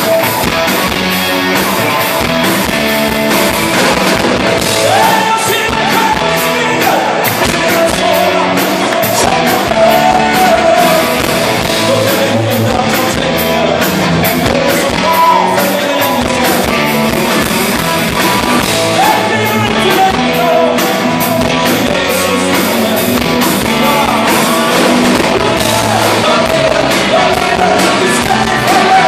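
Live rock band playing: electric guitars, bass and drums, with a lead vocal that comes in about four seconds in and carries on over the band.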